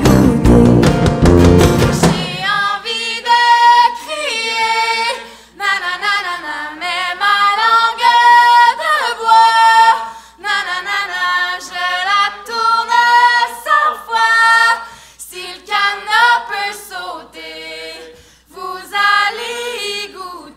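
Two women singing in harmony. A full band with bass and drums plays for the first two seconds, then cuts out, and the voices carry on almost unaccompanied, phrase by phrase with short breaks.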